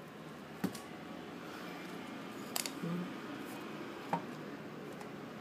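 The iPod Touch's packaging being handled and opened: three light clicks, spread a second or two apart, over faint rustling.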